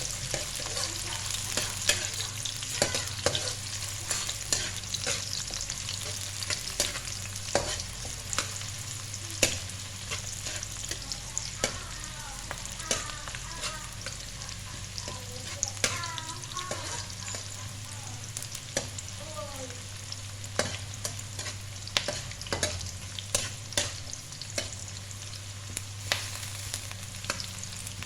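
Garlic, shallots and ginger sizzling in hot oil while a spatula stirs them, with frequent sharp clicks against the pan over a steady hiss: aromatics being sautéed until fragrant.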